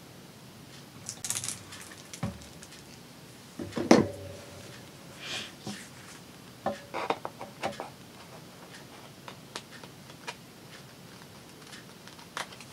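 Craft supplies being handled on a work table: scattered small clicks, taps and brief rustles, the loudest a knock about four seconds in.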